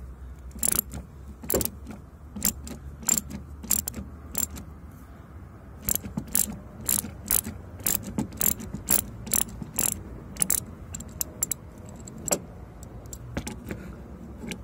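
Ratchet socket wrench clicking as it loosens a 13 mm wiper-arm nut: a long, uneven series of sharp clicks, roughly two a second.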